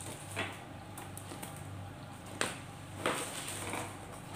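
A few brief handling sounds, light knocks and rustles as items are moved about: one about half a second in, a sharper one past the middle, and a cluster around three seconds in, over a steady low hum.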